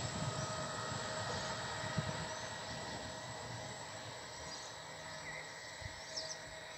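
Double-deck regional train pulling away and receding: a steadily fading rumble of wheels on the rails, with a single clack of a wheel over a rail joint about two seconds in.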